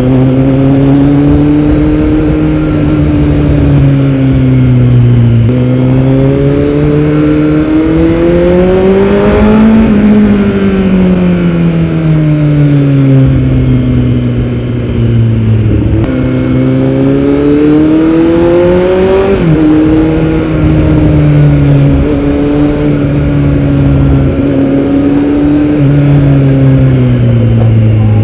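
Kawasaki Z900's inline-four engine through a Yoshimura R77 full-system exhaust, under way, its revs climbing and falling over several seconds at a time. The pitch jumps abruptly at gear changes, three times.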